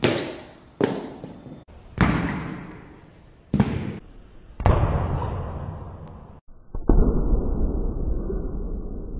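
A sword's quick cut through a cucumber: a sharp crack with a ringing tail, another under a second later, then the same hits replayed slowed down, deeper and duller each time, ending in a low rumbling boom.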